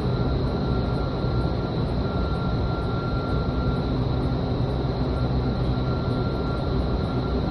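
Vertical wind tunnel's fans and rushing airflow running steadily: an even, loud rumble and rush with a constant high whine.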